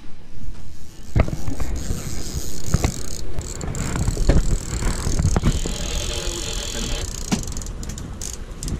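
A fishing reel clicking and rattling, with wind rumbling on the microphone and several sharp knocks of gear being handled on a boat.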